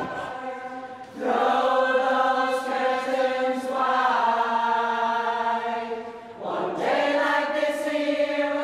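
A large group of voices singing together, a chorus holding three long notes one after another, the first beginning about a second in.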